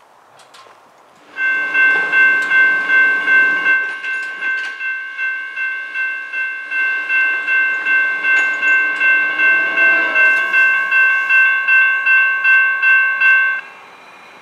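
Railroad grade crossing bell ringing rapidly and steadily, about two to three strokes a second, as a train approaches. It starts about a second in and cuts off abruptly near the end.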